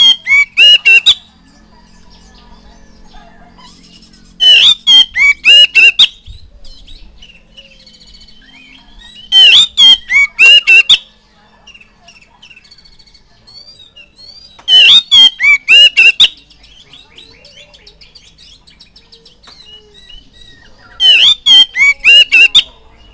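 Oriental magpie-robin singing: loud bursts of six or seven quick, sweeping whistled notes, repeated about every five seconds, with soft twittering in between.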